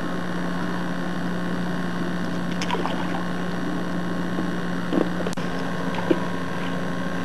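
Steady low hum with even hiss, the background noise of an old home-video tape recording, unchanged across a cut in the picture; a few faint short sounds and a click about five seconds in.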